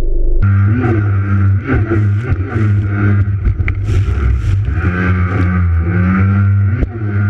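Racing jet ski engine running hard, its pitch rising and falling repeatedly as the throttle is worked through the turns, with a hiss of water spray over it. About half a second in, a steadier, lower drone gives way abruptly to this louder sound.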